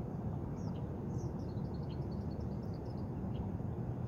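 Small birds chirping: a quick run of short high notes for a couple of seconds, over a steady low rumble.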